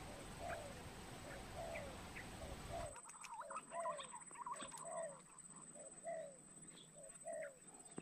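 Pigeon calling: a run of short, falling cooing notes, a little under two a second, with a few higher chirps from other birds. A steady background hiss cuts out about three seconds in.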